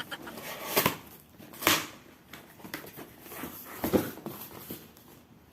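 Cardboard box and packaging being handled during an unboxing: a few short, separate rustles and knocks.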